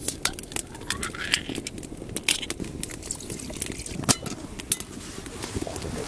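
Wood fire crackling with many sharp, irregular pops, and a short sound rising in pitch about a second in.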